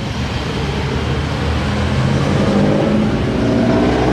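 A motor vehicle's engine running nearby, a steady hum that grows louder and rises slightly in pitch toward the end, as if passing by.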